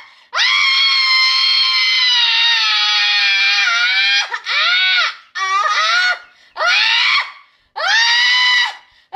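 A person screaming in high-pitched shrieks: one long scream held about four seconds, then four shorter ones, each dropping in pitch as it breaks off. These are the cries of someone being put through an exorcism ritual.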